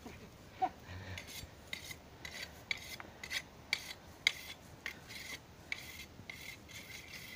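Scythe blade slicing through tall grass in short strokes: a crisp, rasping swish, about two or three cuts a second.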